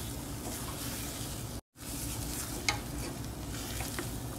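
Wooden spatula stirring and scraping a thick jaggery, dal and coconut filling in a nonstick pan, the filling sizzling softly as it cooks down. The filling is thickening and starting to come together. A few light clicks of the spatula, and the sound drops out for an instant about a second and a half in.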